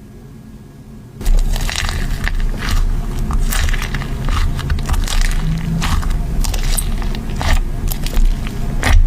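Slime being squished and pressed by hand, a dense run of crackling pops and clicks starting about a second in.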